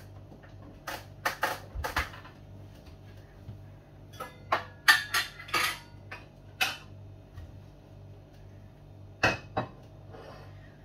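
Dishes and bowls clattering and clinking as they are moved about on kitchen shelves: scattered knocks, a busy cluster about four to seven seconds in, and one more near the end, over a faint steady hum.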